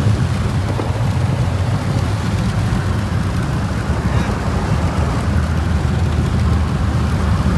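Supercharged 6.2-litre Hemi V8 of a 2018 Jeep Trackhawk running steadily through a Borla aftermarket exhaust, a deep, even rumble.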